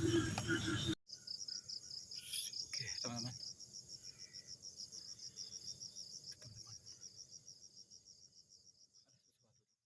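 Cricket chirping in a rapid, even, high-pitched pulse, fading away towards the end. It starts abruptly about a second in, cutting off a short stretch of rhythmic music, and a few brief, louder sounds come through about two to three seconds in.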